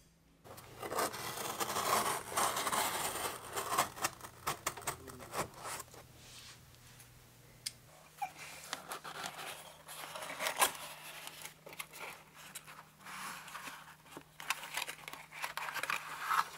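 A folding knife slitting the packing tape on a cardboard shipping box, scraping and tearing, followed by the cardboard flaps being opened and handled with rustles and light knocks.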